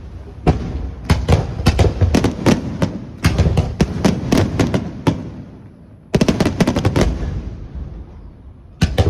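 Fireworks shells bursting: a rapid string of sharp bangs, each trailing off in a rumble. A short lull comes about five seconds in, then another quick cluster of bangs and one more bang near the end.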